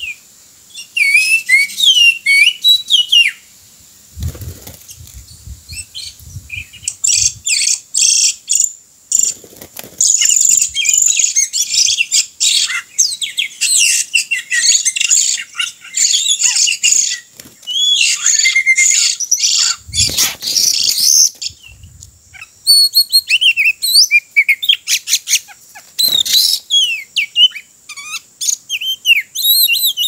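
Oriental magpie-robin song: rapid, varied whistles and chirps that come in loud spells with short pauses. A few dull thumps sound under it.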